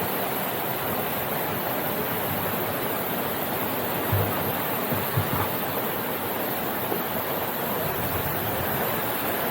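Steady rush of flowing water, with a couple of short low thumps about four and five seconds in.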